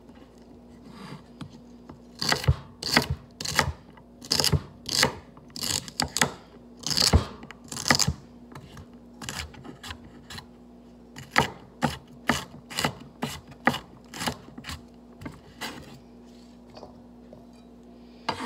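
A kitchen knife chopping vegetables on a cutting board: sharp knocks about two to three a second, in two runs with a short pause in the middle.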